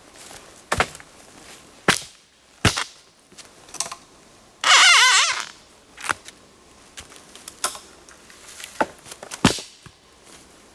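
Dry sticks and twigs snapping in a series of sharp single cracks, spaced irregularly about a second apart. One longer, louder rasping crack about halfway through.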